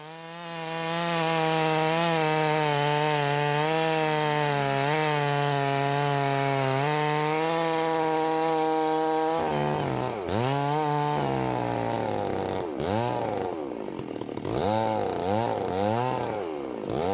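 Petrol chainsaw cutting through the end of a large hollow log, its two-stroke engine running at a steady high pitch under load. About nine seconds in, the engine speed starts dipping and rising again and again as the cut goes on.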